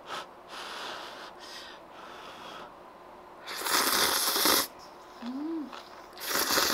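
Thick kalguksu noodles being slurped from a spoon, two loud slurps about a second long each, the first about three and a half seconds in and the second near the end, with softer mouth sounds before them.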